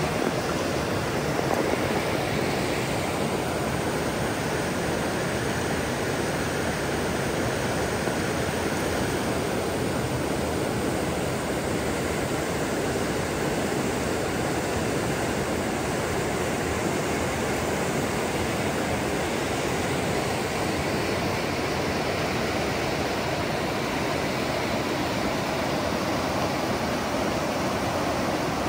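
Steady rush of fast-flowing water, an even roar that holds at the same level throughout.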